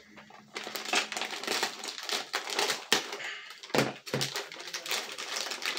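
Plastic or paper packaging being torn open and handled, with repeated irregular crinkling and tearing rustles and a few sharper crackles about three and four seconds in.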